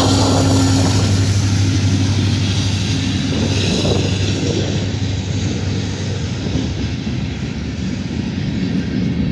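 Union Pacific SD70ACe diesel-electric locomotive, the mid-train distributed-power unit, passing close by with a steady low engine drone that fades over the first few seconds. After that, freight cars roll past with a continuous rumble of steel wheels on rail.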